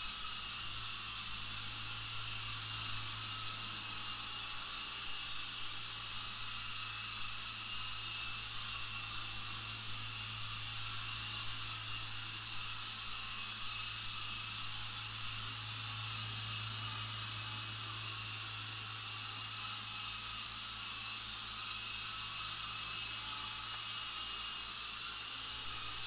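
Small electric 4-channel RC helicopter in flight: a steady motor whine and rotor whir over a hiss, holding the same pitch throughout.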